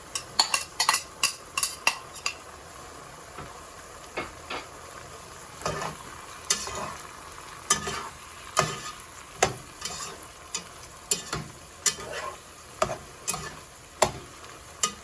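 Pork, vegetables and freshly added broccoli sizzling in a frying pan as they are stir-fried, with a cooking utensil knocking and scraping against the pan at an uneven pace of about one or two strikes a second, most often in the first couple of seconds.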